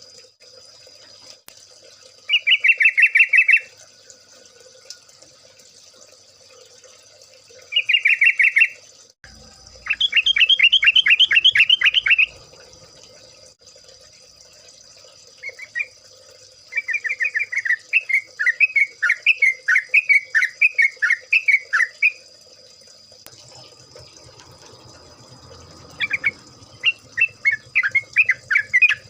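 Yellow-vented bulbuls singing in repeated bursts of fast, bubbling chatter. The bursts come every few seconds, with longer runs of song in the second half. A faint steady high-pitched whine sits underneath.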